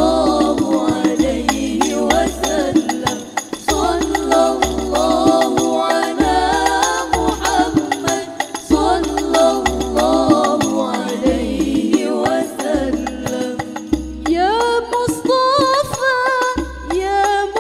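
Hadrah Banjari ensemble: voices singing shalawat together over a regular beat of rebana frame drums and deep bass-drum strokes. About 14 seconds in, the voices rise to a higher, held line.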